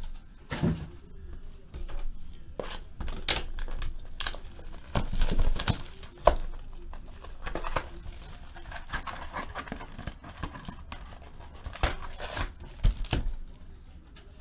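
Trading card packs and their box being handled: foil pack wrappers crinkling and packaging tearing in irregular bursts, with a sharp click about six seconds in.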